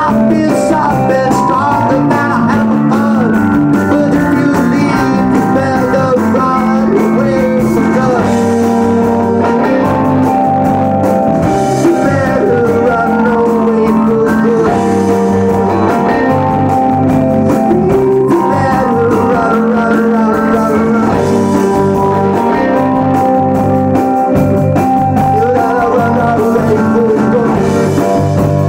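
Live rock band playing a song, with a singer over guitars, bass and drums.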